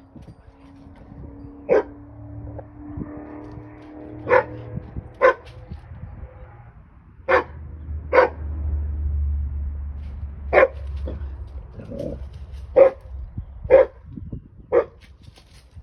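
A dog barking, about ten short sharp barks at uneven intervals.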